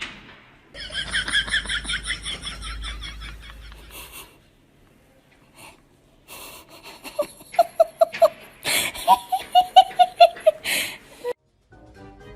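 Laughter in two stretches: first a high-pitched run of quick, even bursts, then, after a short lull, a lower run of quick bursts about seven seconds in.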